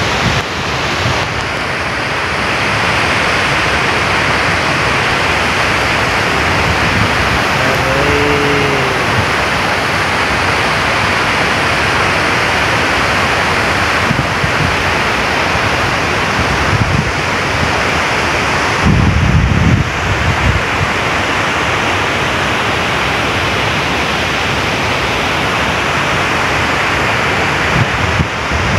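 Steady rush of water from a hydropower dam's open spillway gates, with the river running fast over rocks below. The microphone is briefly buffeted low down about two-thirds of the way through.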